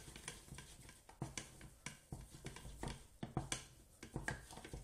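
Wooden spoon working thick choux paste in a stainless steel saucepan, with irregular knocks and scrapes against the pan a few times a second. The panade is being dried out on the heat, the desséchage stage of choux pastry.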